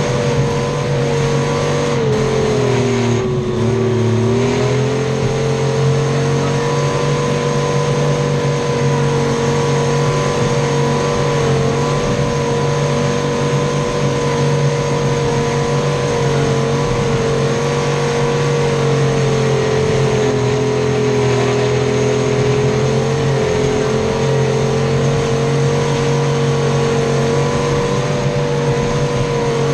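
Detroit Diesel 3-53 three-cylinder two-stroke diesel of a Clark 664B skidder running steadily while the machine drives, heard from beside its exhaust muffler. The engine speed sags briefly about three seconds in, then comes back up; a second, slighter dip comes about two-thirds of the way through.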